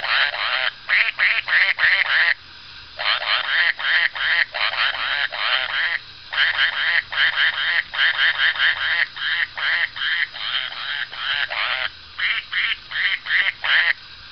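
Plush duck hand-puppet toy playing a tune made of rapid quacks, in phrases with brief pauses, stopping just before the end.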